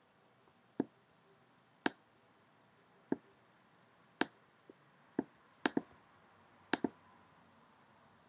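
Computer mouse clicking: single sharp clicks about a second apart, then two quick double-clicks near the end.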